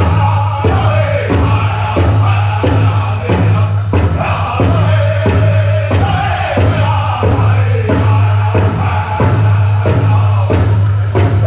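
Powwow drum group singing a chicken dance song around a big drum, struck in a steady beat of about three strikes every two seconds. The voices sing phrases that fall in pitch.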